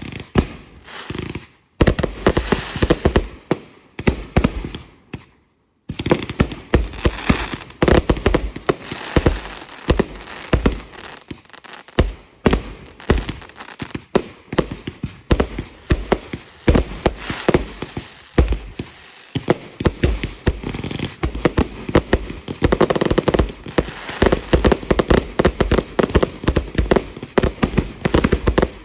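Consumer fireworks going off in rapid, overlapping bangs and crackles, with a brief lull about five seconds in.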